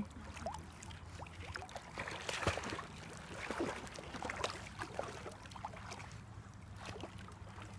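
Shallow lake water splashing and sloshing as a dog paddles away through it: a run of small, irregular splashes, busiest a couple of seconds in.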